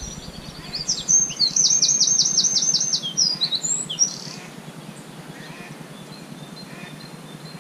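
A songbird sings one high song phrase about a second in: a few lead-in notes, then a quick even run of about ten down-slurred notes ending in a short flourish, lasting about three seconds.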